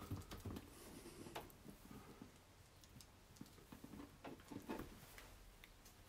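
Near silence with faint, irregular light taps of a paintbrush dabbing paint.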